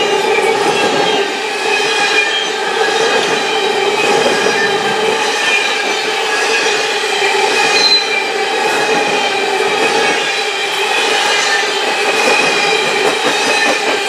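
Freight cars of a Canadian Pacific coal train rolling steadily past, with a continuous rumble of steel wheels on rail and a steady high-pitched wheel squeal riding over it.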